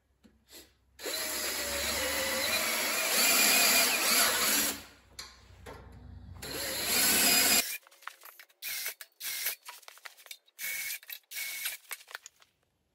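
Cordless drill boring holes up through a thick wooden board, running in a long spell of about four seconds and then a shorter one. After these comes a run of short, separate clicks and brief bursts.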